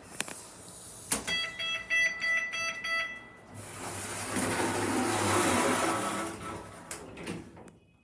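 Shopping-centre passenger lift: a click, then about two seconds of rapid electronic beeping. A whooshing swell with a low hum under it follows for about four seconds, rising and falling as the lift doors close and the car starts to move.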